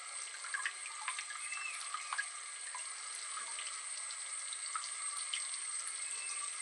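Water from a small pump-driven tabletop fountain spraying out of a plastic nozzle and falling into a basin of water: a steady splashing with scattered small drop sounds. A faint steady high whine sits underneath.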